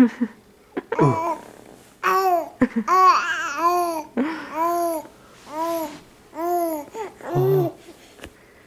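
3½-month-old baby cooing and babbling: a run of short, high sing-song vowel sounds, each rising and then falling in pitch, coming in quick succession through the middle of the stretch.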